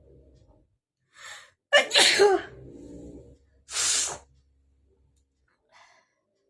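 A person sneezing loudly: a quick breath in just after a second, then a voiced "achoo" at about two seconds, and a second, hissing sneeze at about four seconds.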